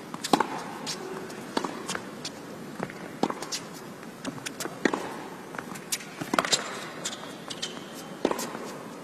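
Tennis rally on an indoor hard court: six loud hits of racket on ball, about a second and a half apart, with fainter ticks between them over a steady background hum.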